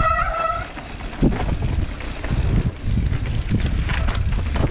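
Downhill mountain bike running fast over a rough dirt trail: a steady rumble and rattle from the bike and tyres with wind buffeting the microphone. A short high squeal at the very start and a sharp knock about a second in.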